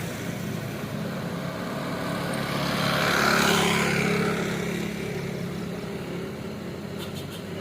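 A road vehicle passing by, its low engine note and tyre noise swelling to a peak about three and a half seconds in, then fading away.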